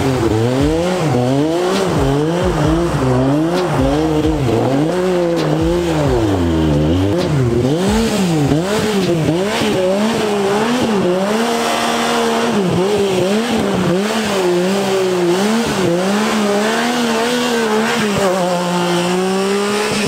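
Side-by-side UTV's engine revving up and down about once a second as it spins donuts on wet pavement. Later the pitch steadies, then drops near the end as it pulls away.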